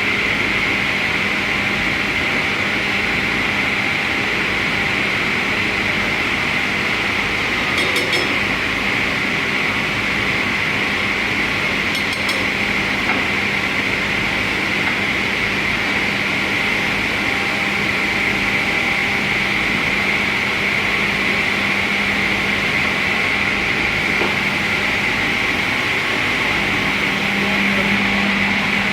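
Multi-blade rip saw for door casings running steadily, with a constant high whine over a low hum.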